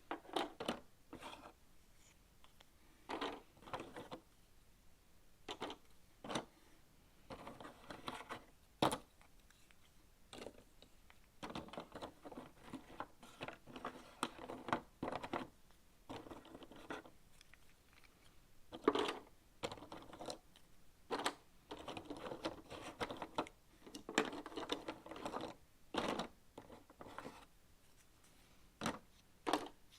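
Cardboard jigsaw puzzle pieces being picked up, set down and slid over a table and into box lids, with irregular light clicks and bouts of rustling and scraping as the pieces are sorted.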